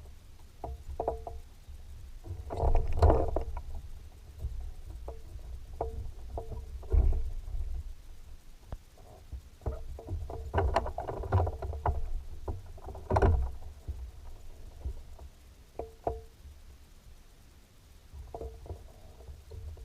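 Water lapping and slapping against a fishing boat's hull in irregular knocks, over a steady low rumble of wind on the microphone.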